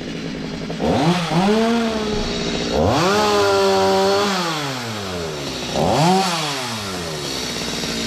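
Stihl two-stroke chainsaw revved up three times. Each time the engine climbs sharply to a high whine, holds it for about a second, then falls back toward idle.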